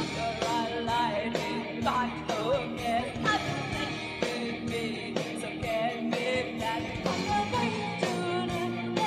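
Live rock band playing: a woman sings the lead vocal over electric guitars and a steady drum beat.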